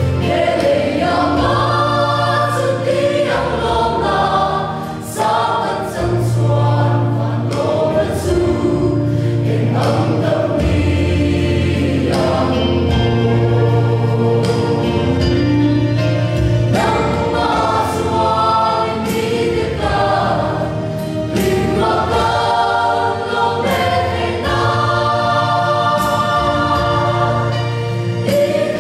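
Mixed choir of women and men singing a gospel hymn.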